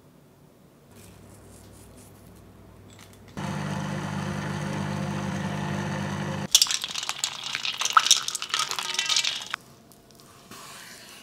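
A small motor hums steadily for about three seconds, then plastic crinkles and crackles sharply for about three seconds as a bag is handled, followed by a short soft knife slice through cooked meat near the end.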